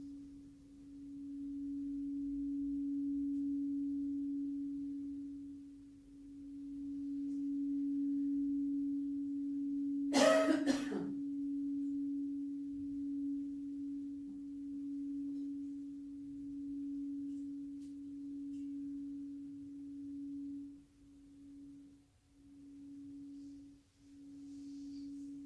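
A crystal singing bowl sounding one steady note, swelling and fading in slow waves. About ten seconds in, a person coughs once, loudly. Near the end the note cuts out briefly a few times.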